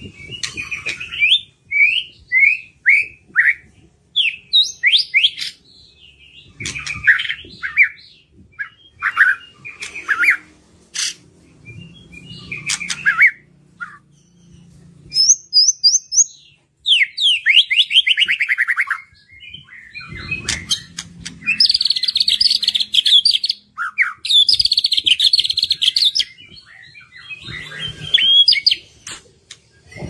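White-rumped shama singing: a varied run of clear whistled notes, fast sweeping trills and harsh rattling phrases, broken by short pauses.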